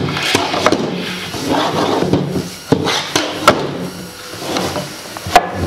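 Firework mortar tubes being turned and set back into a wooden rack: a series of sharp knocks and clunks as the tubes strike the wood and each other, with rubbing and scraping between them.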